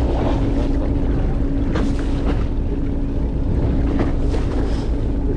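Fishing boat's engine humming steadily under strong wind buffeting the microphone, with a few light clicks about two and four seconds in.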